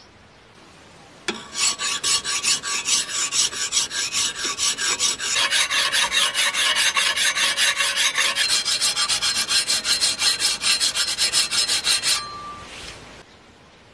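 Hand file rasping back and forth along the edge of a metal strip clamped in a vise, in quick, even strokes about three or four a second, with a faint ring from the metal. The filing starts about a second in and stops shortly before the end.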